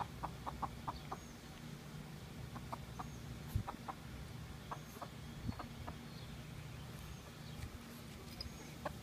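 Chickens clucking: short runs of quick clucks, a burst of about five in the first second, then pairs and small groups every second or so, with faint high chirps above.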